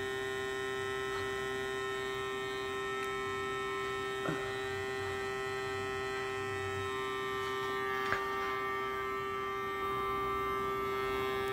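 Navage nasal irrigator's motorized suction pump running with a steady hum while it draws saline through the nose into its reservoir. A faint click comes about four seconds in and another about eight seconds in.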